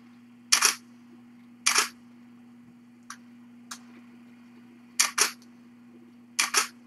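Camera shutter sounds of snapshots being taken: single clicks about half a second and under two seconds in, then two quick double clicks about five and six and a half seconds in. Fainter small clicks come in between, over a faint steady hum.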